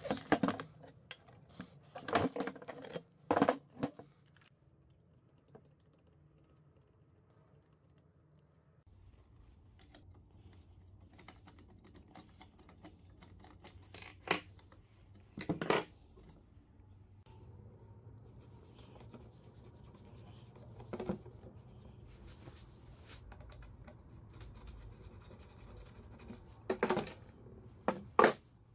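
Hand tools working on an old sewing machine: scattered clicks and scraping as a ratcheting wrench and screwdriver loosen its bolts, with several sharp knocks of metal parts and tools on the workbench.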